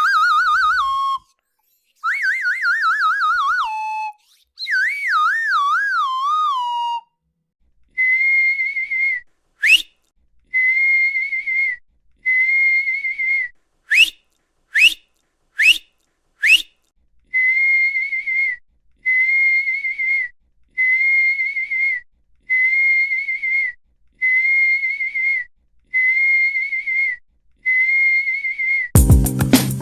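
A run of high whistles. First come three warbling whistles that slide down in pitch. Then a long series of short, steady, high whistles about a second each, with several quick rising whistle sweeps in the middle.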